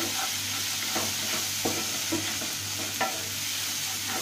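Ground spices frying in oil in a nonstick frying pan, a steady sizzle, while a spatula stirs and scrapes the pan with a few light knocks.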